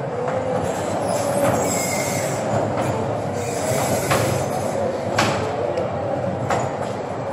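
Small electric kiddie-ride train running around its metal track: a steady rolling rumble with a faint wavering squeal and a few sharp clicks.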